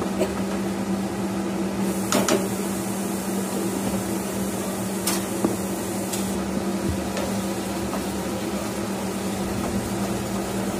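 Chicken frying over a high flame in a nonstick wok, with an even sizzle over a steady hum. A few sharp knocks come as the spatula and the glass lid touch the pan.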